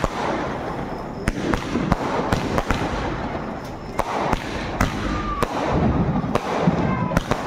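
Firecrackers going off in irregular sharp bangs, some in quick runs, over the steady hiss of a ground fountain firework (anar) spraying sparks.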